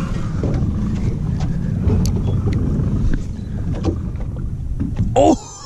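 A fishing boat's engine runs steadily while the boat is underway, a low rumble mixed with wind and water noise. Near the end a person gives a brief loud shout, and the engine rumble drops away.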